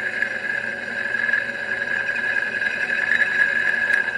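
A drill bit boring a pilot hole through a thick steel steering arm, making a steady high-pitched whine as it cuts.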